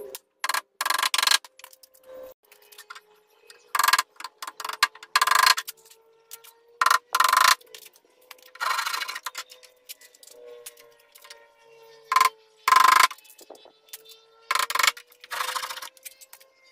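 Bamboo slats and wooden coop frame being handled: about a dozen short, irregular clatters, clinks and scrapes, with a faint steady hum underneath.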